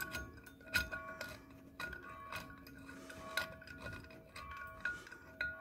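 Spanner and steel puller bolts clinking while a flywheel puller is loosened and taken off a motorcycle engine's flywheel: irregular sharp metal clinks, each ringing briefly, with some scraping between them.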